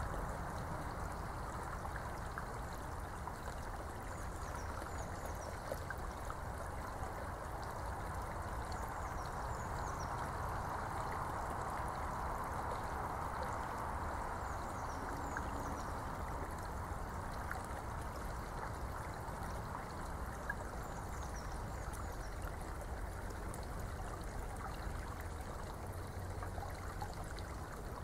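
Steady rushing noise of running water, with faint scattered crisp ticks of a Eurasian beaver gnawing on a twig.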